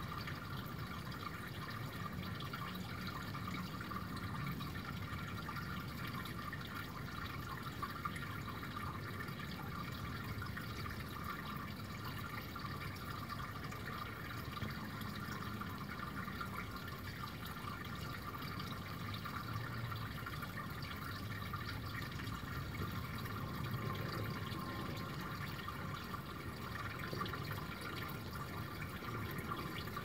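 Small shallow brook babbling and trickling steadily over a pebbly bed.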